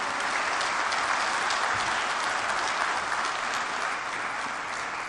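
Audience applauding at the end of a speech: steady clapping that starts to fade near the end.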